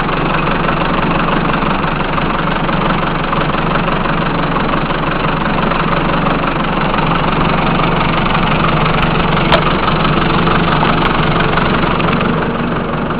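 Case 580D backhoe engine idling steadily, with one sharp click about two-thirds of the way through.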